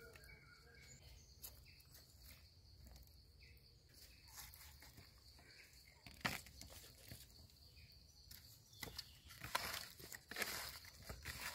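Hands handling and rubbing seasoning into raw whole fish on a plastic tray: a single knock about six seconds in, then from about nine seconds a run of short rustling and scraping sounds over faint background hiss.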